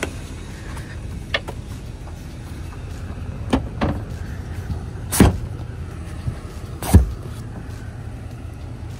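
A boat's hinged fold-out walkthrough cushion being swung out of the gull-wing seat and set into place. It gives a few light knocks and two louder thumps, about five and seven seconds in, over a low steady rumble.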